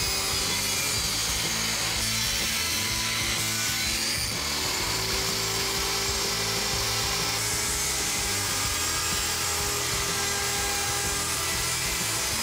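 Table saw running and cutting plywood, a steady saw noise as the boards are pushed through the blade to cut grooves along them.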